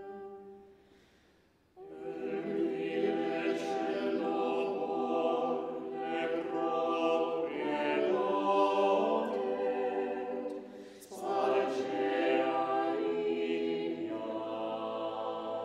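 Background choral music: a choir singing unaccompanied in long held chords. One phrase dies away, a new one enters about two seconds in, and there is a brief break before another entry about two-thirds of the way through.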